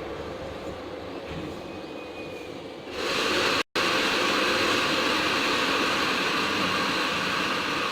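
Air conditioner outdoor unit running: a steady whooshing fan and motor noise that steps up louder and brighter about three seconds in, with a split-second dropout just after.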